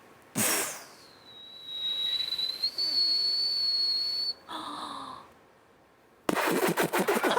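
A man imitating distant fireworks with his mouth: a short hissing burst, then a thin high whistle held for about three seconds, then a soft pop. Laughter breaks out near the end.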